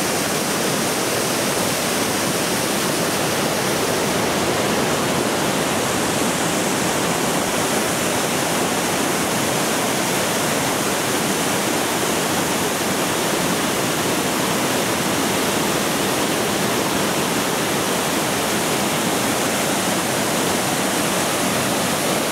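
Mountain stream rushing over boulders and small waterfalls: a steady, unbroken rush of white water.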